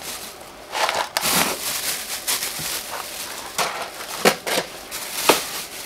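Frozen food being handled in a chest freezer: irregular rustling and crinkling of plastic bags around hard frozen packs, with plastic tubs knocking against them. Two sharper knocks come near the end.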